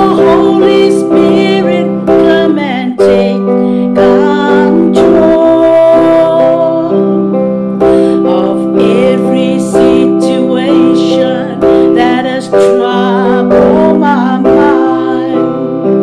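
A woman singing a slow worship song, accompanying herself on an electronic keyboard. The keyboard plays held chords, with a new chord struck every second or two under her wavering sung line.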